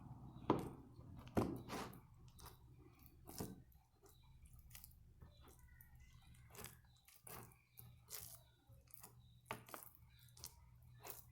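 Homemade dish-soap slime being squeezed and pressed by hand, giving irregular sticky clicks and crackles, a few louder pops in the first couple of seconds, over a low steady hum.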